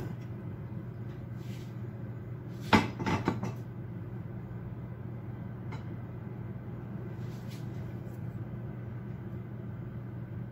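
A steady low hum, broken about three seconds in by a sharp knock and a few lighter clatters as a ceramic serving dish is handled.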